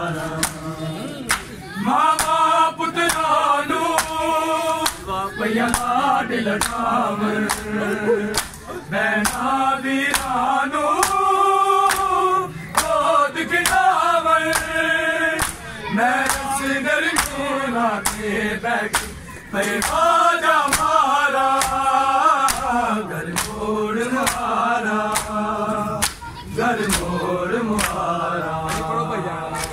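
Men's voices chanting a Punjabi nauha, a Muharram lament, in unison, with sharp slaps of hands on bare chests (matam) beating time a little more than once a second.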